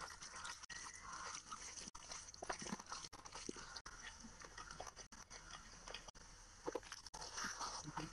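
Close-up eating sounds: chewing with many short wet clicks, and fingers squishing rice and curry together on a plate.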